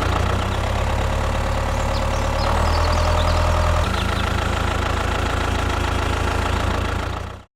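Small engine running steadily at idle, its low hum shifting slightly about four seconds in, then fading out just before the end.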